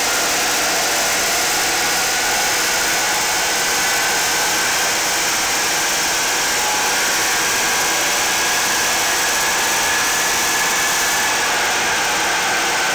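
Mitsubishi Pajero 3.2 DI-D four-cylinder turbodiesel running on a chassis dynamometer. It makes a steady, loud rushing noise, with a faint whine that slowly rises in pitch and drops back near the end.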